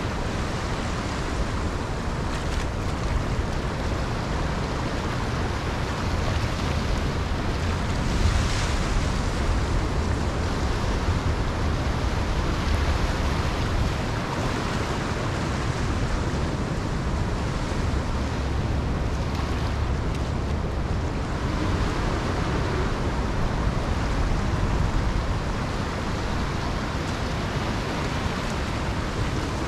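Small waves washing up on a sandy beach, a steady rush of surf that swells louder now and then as a wave breaks, with wind rumbling on the microphone.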